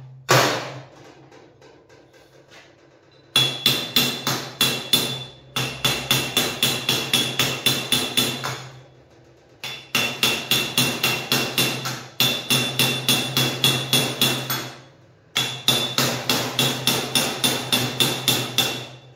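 Hammer blows on a metal tube, driving it down into a slot in an electric boat motor's shaft housing for a tight fit. The strikes come in rapid runs of about four ringing metal blows a second, broken by short pauses.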